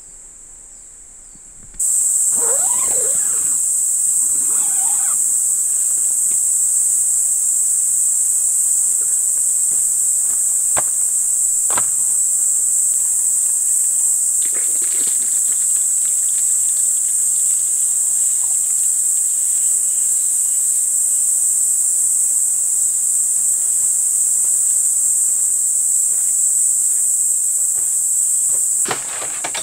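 Loud, dense insect chorus: an unbroken high-pitched buzz that cuts in about two seconds in and drops away just before the end. A few faint rustles and two sharp knocks about halfway through come from someone handling camping gear.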